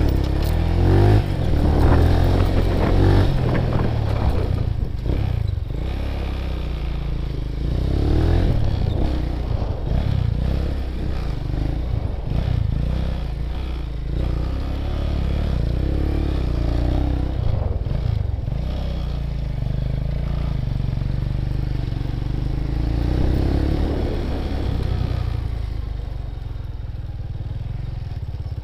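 Motorcycle engine running at low speed, revving up and easing off again several times, as in slow-speed handling drills of turns and slalom.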